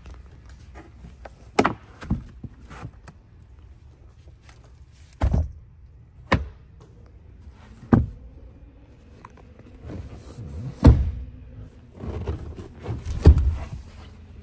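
Knocks, clicks and clatters of a pickup's rear-cab fold-flat load floor being folded away and the rear bench seat cushion dropped back into place: a string of separate thumps, the loudest in the last few seconds.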